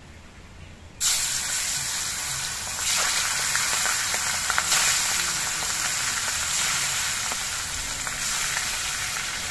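Pieces of aar fish frying in hot mustard oil in a kadai: a loud sizzle starts suddenly about a second in as the first pieces go in, and grows louder around three seconds in as more are added, then carries on steadily.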